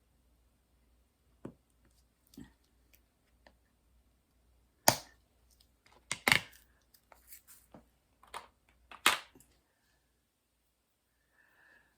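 Scattered sharp clicks and knocks of small objects being handled on a work table, the loudest about five, six and nine seconds in.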